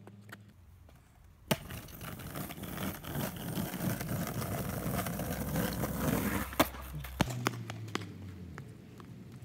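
Skateboard wheels rolling over paving stones with a rough rumble, starting with a sharp clack of the board about a second and a half in and ending with another sharp clack about five seconds later, then a fainter roll and a few light clicks.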